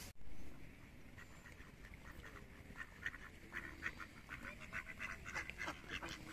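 Mallard ducks quacking: a rapid series of short calls that grows busier after about three seconds. A brief burst of noise right at the start.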